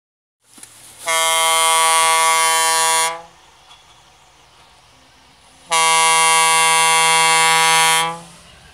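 Diesel freight locomotive's air horn sounding two long, steady blasts of about two seconds each, a warning for the level crossing ahead.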